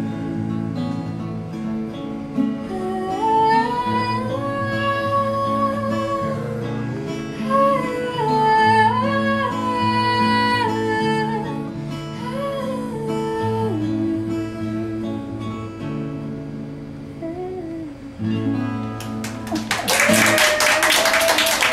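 Several acoustic guitars strumming chords under a sung melody of long, gliding notes with no words. A few seconds before the end the song stops and hands start clapping.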